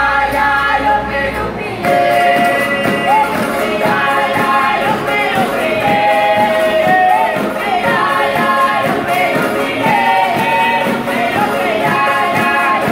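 A group of singers performing together to strummed ukuleles and a guitar, in a steady, rhythmic string-band song.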